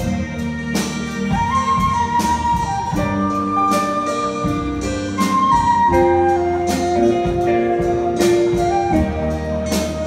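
Live band playing a Mandarin folk song: strummed acoustic guitar, keyboard and drum kit, with a melody of long held notes over a steady beat.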